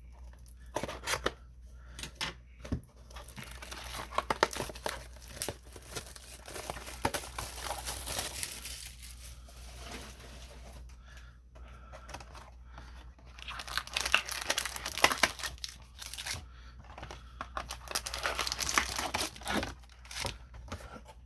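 Foil trading-card booster packs being handled, crinkled and torn open, in several bursts of rustling and tearing.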